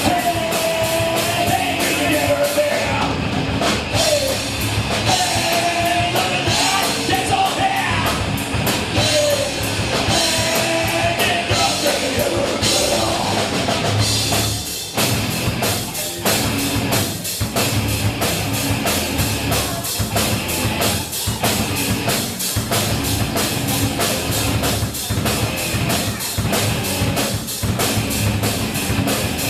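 Rock band playing loud, heavy rock: a bending, wavering melody line over guitars and drums for about the first half, then a drum-driven section with a steady beat.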